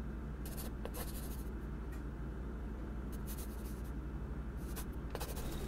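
Pen scratching across paper in three short stretches over a steady low hum, with a few laptop key clicks near the end.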